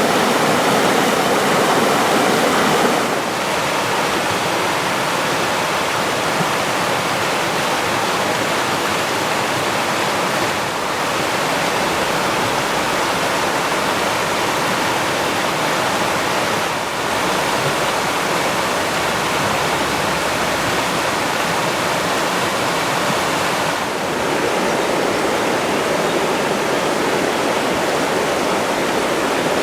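Alpine mountain water rushing steadily, an even white-noise roar of a fast stream or waterfall. Its tone and level shift slightly a few times, as if heard from different spots.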